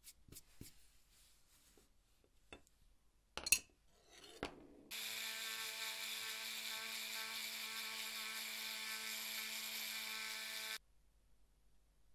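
A few light taps and one sharp knock, then a small pen-style rotary tool with a sanding drum runs at a steady whine for about six seconds, sanding a leather edge, and stops suddenly.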